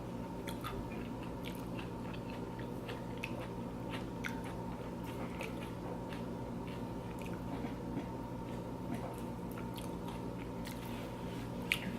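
Close-up chewing of loaded tortilla-chip nachos, with irregular crisp crunches, a couple a second.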